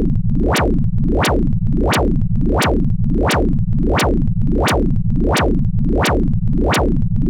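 Synthesized emergency-alert alarm tone: a low buzzing tone pulsing about one and a half times a second, each pulse opening with a sharp click.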